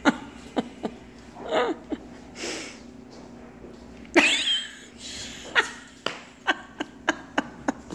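A person's sudden loud vocal burst about four seconds in, followed by a string of light taps, likely a quad-tip cane tapping the hardwood floor as its user walks.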